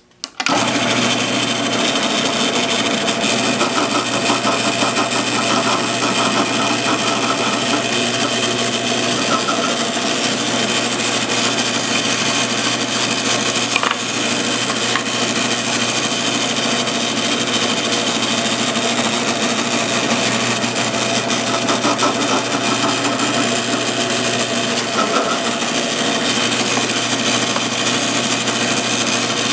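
Drill press switched on just after the start, then running steadily with a brad-point bit in the chuck. The motor and spindle make a continuous mechanical hum with a few steady tones.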